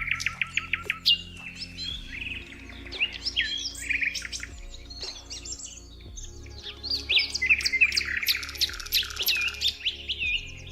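Several songbirds singing and chirping over one another, with a fast trill near the start and clusters of quick whistled notes. Beneath them runs a soft, sustained musical drone.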